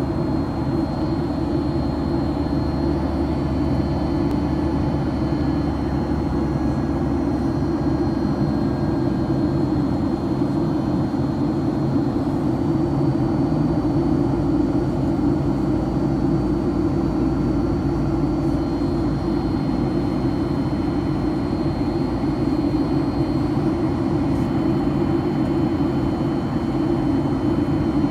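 Airliner cabin noise: the steady sound of the engines and rushing air heard inside the passenger cabin, heaviest in the low range, with a faint high whine above it.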